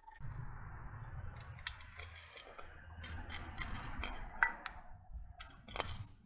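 Candy-coated M&M's chocolates clattering onto asphalt in scattered clicks as a plate is lifted and tipped off the pile, over a low steady rumble. The clicks come in clusters, the loudest near the end.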